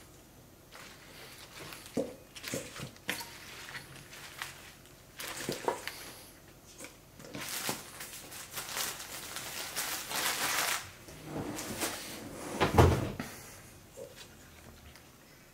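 Kitchen handling noises: green onion stalks knocking against a stainless steel bowl, and plastic wrapping crinkling for several seconds in the middle. One heavy thump comes near the end.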